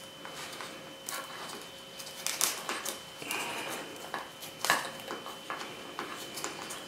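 Wire ends being worked by hand back into the foam body inside a feathered barn owl skin: soft rustling with scattered light clicks and taps, the sharpest about two-thirds of the way through.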